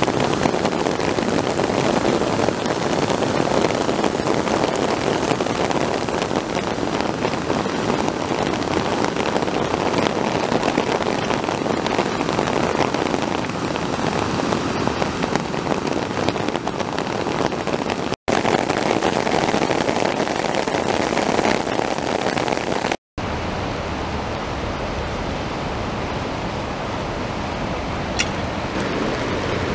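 Rain and a flash-flooded arroyo's muddy water rushing, a loud steady noise, broken twice by short gaps at cuts. After the second gap the sound is duller and more even, the rushing of the swollen channel.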